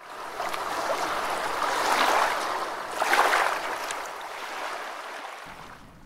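Rushing, splashing water sound effect that swells twice and then fades out.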